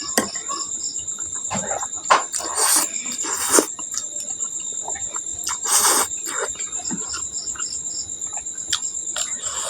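Crickets chirping steadily in the background, a continuous high pulsing trill. Over it come a few short, noisy eating sounds from close to the microphone, about two, three and a half and six seconds in, with soft clicks of chewing and utensils in between.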